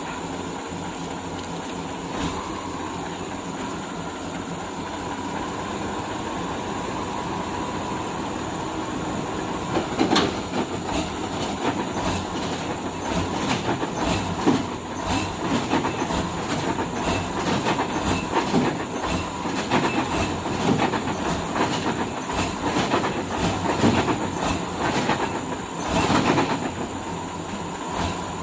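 Heavy log-handling machinery running steadily, with many irregular metallic knocks and clanks from about ten seconds in.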